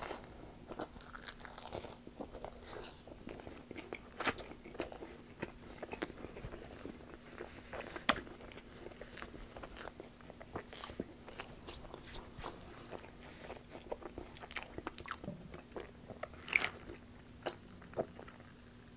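Close-miked chewing of a bite of Pizza Hut pizza: a steady run of wet mouth clicks and small crunches of crust, the loudest about eight seconds in.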